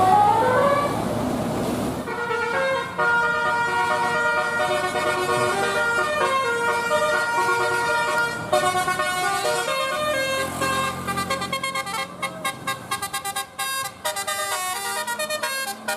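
Bus telolet horn, a bus's multi-trumpet musical air horn, playing a tune: a rising glide at the start, then a string of stepped notes, which near the end turn into quick stuttering toots.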